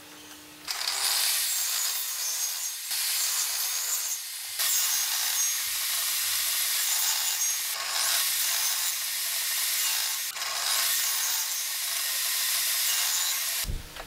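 Table saw cutting wooden boards in a series of cuts. The loud, hissing cutting noise starts about a second in, changes several times, and stops sharply just before the end.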